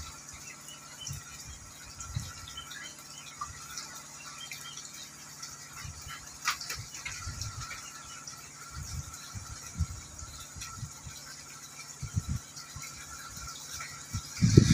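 Hito catfish crowding and thrashing at the water surface of a concrete pond, a continuous light splashing and churning. Occasional short low bumps and a faint steady high hum run underneath.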